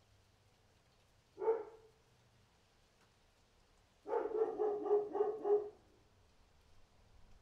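Dog barking: a single bark about a second and a half in, then a quick run of short barks lasting about a second and a half.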